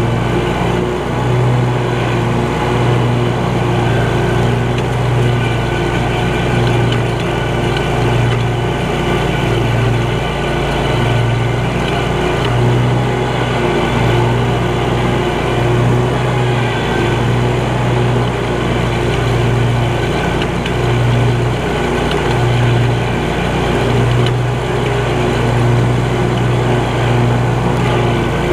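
Scag Cheetah 52-inch zero-turn mower's engine running steadily at a constant speed while the machine is driven, heard close from the operator's seat.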